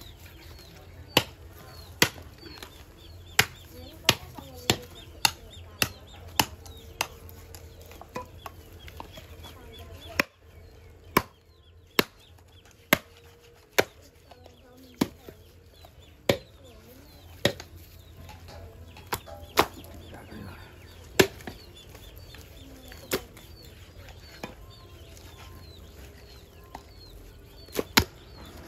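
A heavy blade chopping through pork, about one sharp chop a second with a few pauses, near the end two in quick succession. Chickens cluck faintly in the background.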